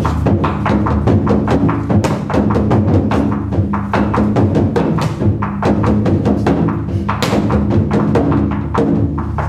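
Taiko drumming: a large barrel drum beaten in a fast, unbroken stream of strokes, with sharp clicks among the beats and a low ringing tone underneath.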